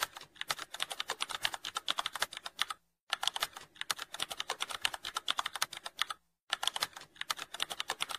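Rapid computer-keyboard typing clicks: a typing sound effect that goes with on-screen text being typed out. The clicking breaks off briefly twice, about three seconds in and just after six.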